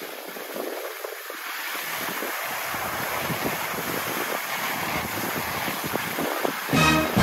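Skis sliding and scraping over packed snow, an even rushing hiss with small irregular scrapes that grows louder as the skiing gathers speed, mixed with wind on the microphone. Music comes in near the end.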